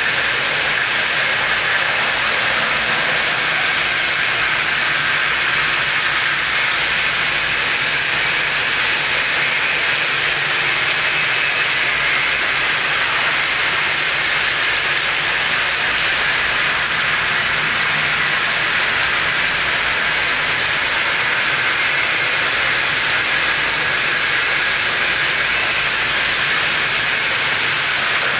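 Steady, loud hiss of even noise that does not change throughout.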